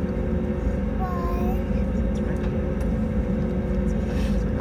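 Steady cabin noise of an Airbus A320neo with Pratt & Whitney PW1100G geared turbofans at takeoff power: a loud, even rumble with a few steady humming tones over it.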